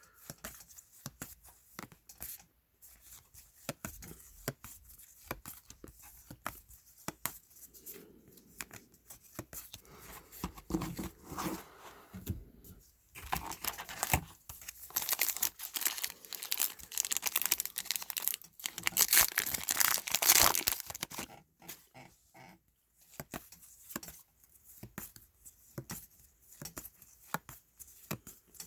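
Topps trading card pack wrappers being torn open and cards handled: crinkling and tearing with intermittent rustling, loudest in two stretches around the middle.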